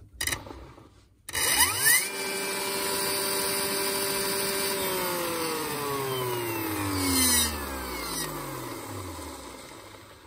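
DeWalt DCN692 nailer's brushless motor and flywheel spinning up about a second in, running at steady speed for a few seconds, then winding down in a long falling whine as it coasts to a stop. This is a test run after the motor was cleaned, greased and reassembled.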